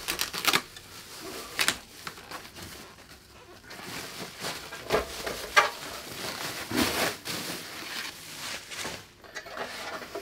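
Irregular rustling of packaging with scattered light knocks and clinks as TV stand parts are handled and unpacked.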